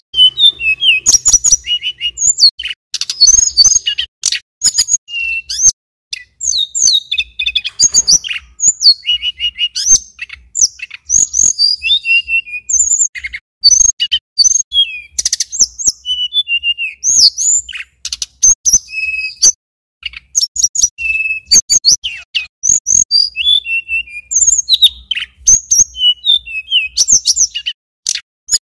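Male Tledekan Gunung (sulingan gunung) singing in fast, continuous runs of high chirps, trills and whistled glides, pausing briefly a few times.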